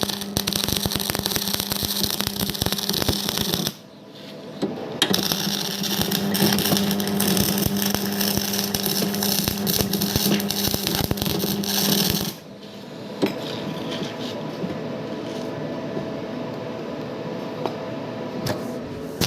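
Electric arc welding: a dense crackling arc with a steady buzz, broken off briefly about four seconds in, then running again until it stops about twelve seconds in, leaving a lower steady noise.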